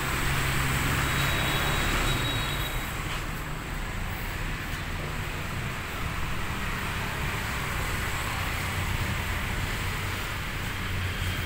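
Steady background rumble with a low hum and a hiss over it, with no distinct knocks or events.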